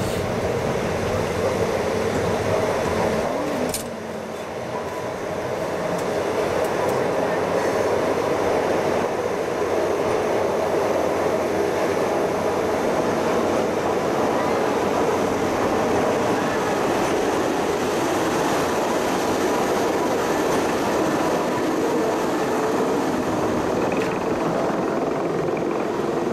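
Pilatus Railway electric cogwheel railcars running on the rack track, a steady mechanical drone of the rack gearing and wheels. There is a sharp click about four seconds in, and the sound drops briefly just after it.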